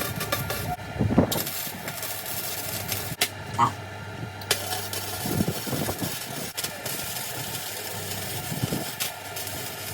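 Electric arc welding on steel box section: an uneven crackle with a steady low hum underneath and a few sharper pops.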